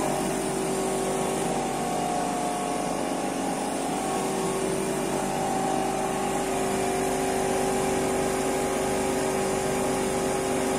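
Foam-concrete block machine running, its motor turning a paddle that churns foam in a steel mixing drum: a steady machine hum with a few constant tones.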